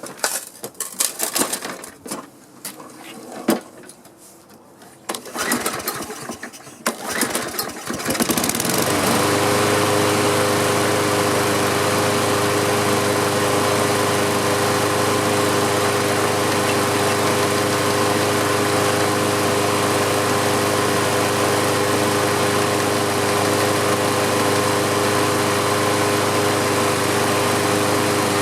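Walk-behind lawn mower's small engine being started: a few seconds of knocks and rattles, then it catches about eight seconds in and runs at a steady, even speed. It keeps running now that its stuck carburetor float has been tapped free.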